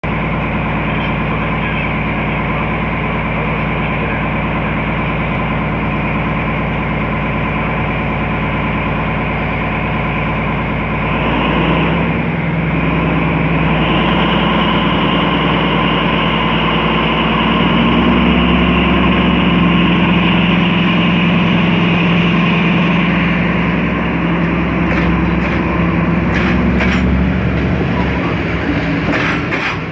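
MÁV class 418 (M47 'Csörgő') diesel-hydraulic locomotive idling. About twelve seconds in its engine revs up and it pulls the train away, running steadily under load. Near the end, carriage wheels click over rail joints as the coaches roll past.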